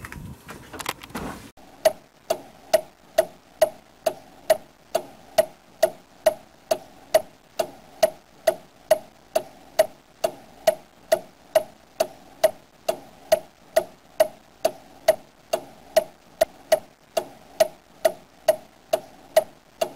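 Steady ticking of a clock, a little over two ticks a second, starting about a second and a half in.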